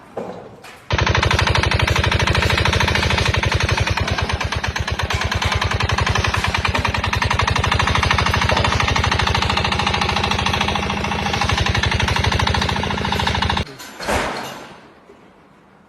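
Rapid, even mechanical hammering from a powered impact tool, starting abruptly about a second in and cutting off near fourteen seconds.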